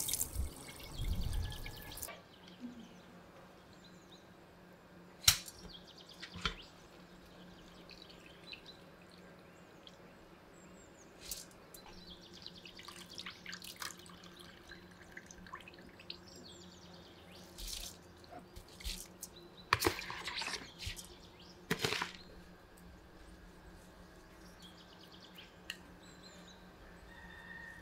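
Rinse water pouring off washed grains out of a plastic bowl for the first couple of seconds, then a quiet stretch of scattered knocks and clatters of the bowl, aluminium pot and scoop. About 20 seconds in there is a brief rush of noise as the grains are tipped into the pot.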